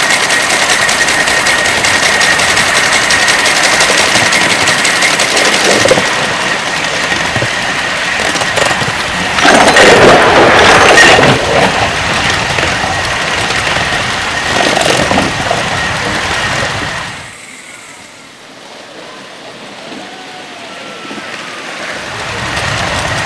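5-inch gauge live-steam model of an LNER A4 locomotive running on a raised track with its riding car, a steady running noise of engine and wheels heard from on board. About ten seconds in a louder burst of noise lasts about two seconds; later the sound drops away suddenly and grows louder again near the end.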